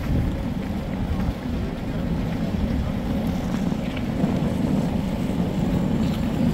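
Large coach bus engine idling close by: a steady low rumble, with wind buffeting the microphone.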